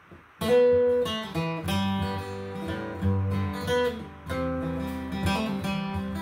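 Steel-string acoustic guitar playing the instrumental opening of a song, picked and strummed chords ringing on, starting suddenly about half a second in.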